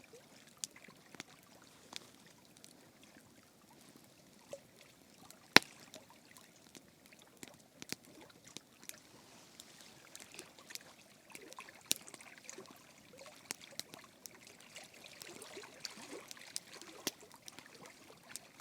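Faint water lapping and trickling at a lake's edge, with the irregular sharp pops and crackles of a wood campfire; the loudest pop comes about five and a half seconds in.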